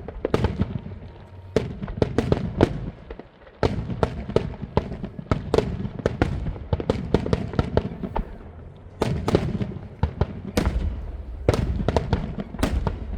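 Fireworks going off in a dense, irregular barrage of sharp bangs, several a second, with a brief lull a little over three seconds in.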